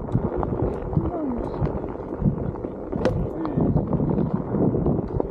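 Onewheel GT S-series electric hub motor whining while climbing a dirt trail, its pitch dipping and shifting with speed, over tyre rumble on dirt and wind buffeting the microphone.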